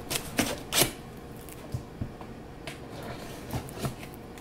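Large kitchen knife cutting the packing tape on a cardboard box: three short scraping strokes within the first second, then a few fainter scratches and taps.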